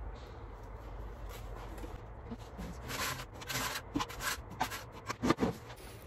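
Air fryer basket being handled on a kitchen counter: a run of short scraping and rubbing noises with a few knocks, starting about three seconds in, over a low steady hum.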